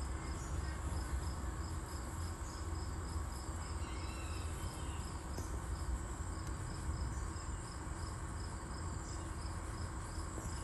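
Crickets chirping in a steady, regular rhythm of about three chirps a second, with a continuous high insect trill and a low background rumble behind them.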